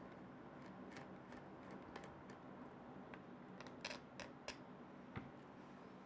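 Faint scattered clicks of small screws and a screwdriver being handled over a plastic RC car chassis, with a few sharper clicks about four seconds in and one more a second later.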